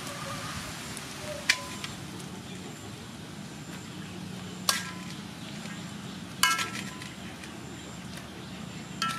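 A metal utensil clinking against a wok about four times, each sharp strike ringing briefly, over a steady low hiss from the pan of stir-fried noodles.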